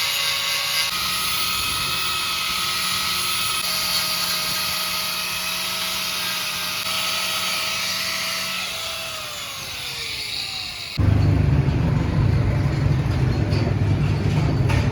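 A power tool runs with a steady whine over a high hiss, and its pitch falls as it winds down about nine to ten seconds in. About eleven seconds in, the sound cuts abruptly to a loud low rumble.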